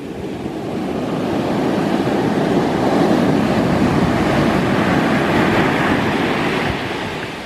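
Ocean surf: a big wave breaking and washing up the shore, swelling over the first couple of seconds, holding, then falling away near the end.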